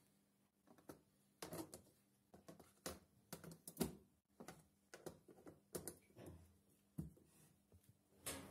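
Handling noise of hands on acrylic ant-nest boxes: a quiet run of irregular light clicks and knocks.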